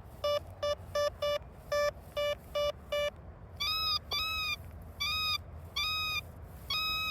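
Detech Chaser metal detector beeping on a shallow target: short low beeps, about three a second. About three and a half seconds in they change to longer, higher-pitched tones. The target is an aluminium fire extinguisher tag that the detector reads as a good copper-brass signal.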